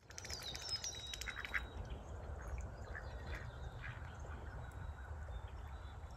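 Ducks quacking now and then, with small birds singing high and briefly in the first second or so, over a steady low rumble.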